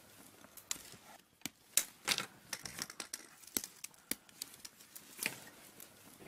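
Irregular small clicks, taps and light rustling of hands handling small parts and equipment at close range.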